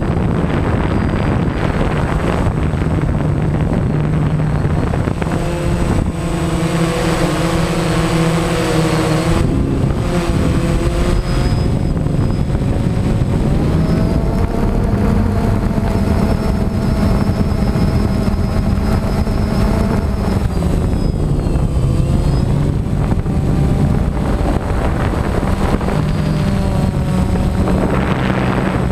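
DJI Phantom quadcopter's electric motors and propellers humming, heard from the GoPro mounted on the drone, the pitch shifting up and down several times as the motors change speed, over a steady rush of wind on the microphone.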